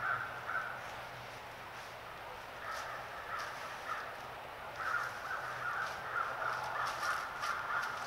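Distant animal calling in quick runs of short repeated notes, a brief run at the start, another about three seconds in, then an unbroken run through the second half. Light crackles of dry leaves underfoot come as white-tailed deer step through the leaf litter.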